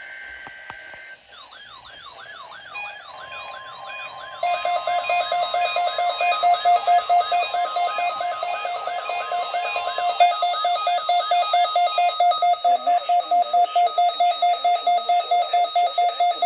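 Several weather alert radios sounding their alarms at once, set off by the warning alarm test: a repeating warbling, siren-like sweep starts just over a second in, and about four seconds in a loud, rapid beeping joins it, with a steady tone underneath for several seconds.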